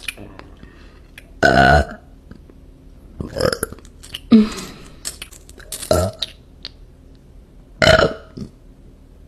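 A woman burping, about five separate burps in a row. The first, about a second and a half in, is the longest and roughest. A short one in the middle drops in pitch, and another loud one comes near the end.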